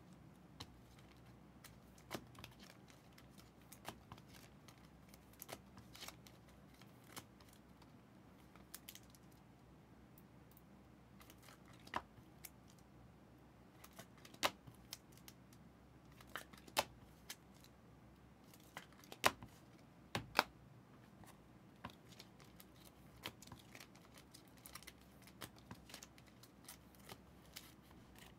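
Trading cards being handled at a table: faint, scattered clicks and snaps as cards are flipped, slid and set down, with a handful of sharper ticks around the middle.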